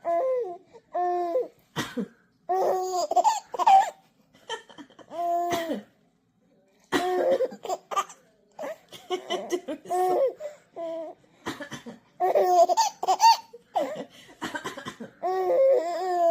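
A 50-day-old baby laughing in repeated short bursts of high, cooing laughter, with a few short coughs in between that set the laughs off.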